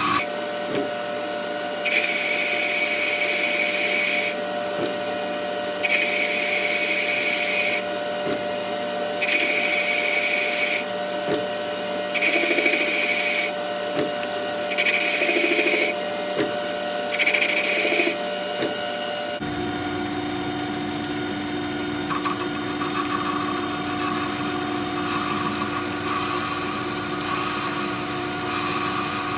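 CNC lathe boring out the bore of a cast-iron Holset HX35 turbine housing with a boring bar under coolant. The spindle gives a steady whine. A louder, bright cutting noise comes on for about two seconds at a time, six times, as the tool takes repeated passes. About two-thirds of the way through, the machine's pitch changes and the cutting settles into a steady, even sound.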